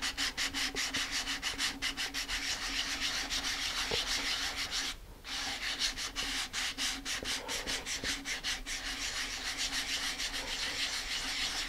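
220-grit sandpaper on a sanding block scrubbed back and forth over a model rocket fin coated with dried filler, in rapid, even strokes with a short break about five seconds in. The filler is being sanded smooth before painting.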